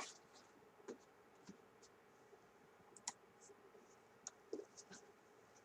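Faint, scattered clicks and light scratching from small robot-kit parts and circuit boards being handled, about eight short ticks spread irregularly over a few seconds.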